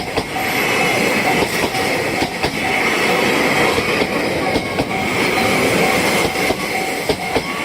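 Train passing over a level crossing on the Hakodate Main Line, its wheels running noisily over the rails. The crossing's warning bell rings on and off at an even pace throughout.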